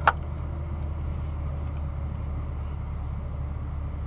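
BMW G80 M3's twin-turbo inline-six running at low revs, a steady low drone heard from inside the cabin, with one short sharp click at the very start.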